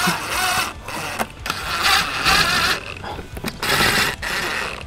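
Cordless impact driver running in three short bursts, driving screws up into plastic trim clips. The screws are being run in snug but not tight, so the plastic does not strip.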